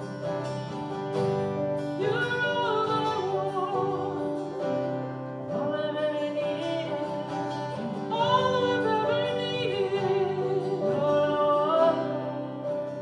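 Worship song: a voice singing wavering phrases over a steady chord accompaniment, probably guitar-led, with a fresh phrase coming in every few seconds.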